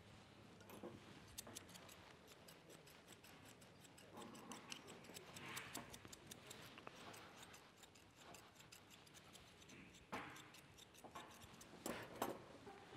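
Grooming scissors snipping at a Shih Tzu's coat: faint, quick runs of small metallic clicks, with a little rustle of handling now and then.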